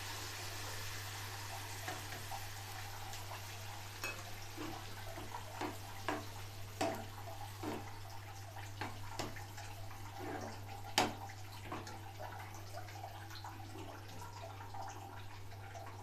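Sugar syrup hissing as it meets hot rice in a pan, fading over the first moments, then a steel spoon stirring the rice with scattered clicks and scrapes against the pan, the loudest about eleven seconds in. A steady low hum runs underneath.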